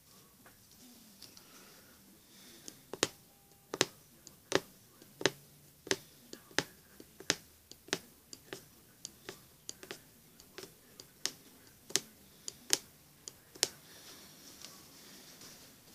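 Punch needle stabbing through fabric stretched taut in an embroidery hoop while outlining with yarn: a run of sharp clicks, one or two a second, starting about three seconds in and stopping shortly before the end.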